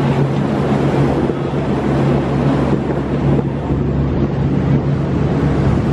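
Tour boat's engine running with a steady low drone under a constant rush of wind and water noise.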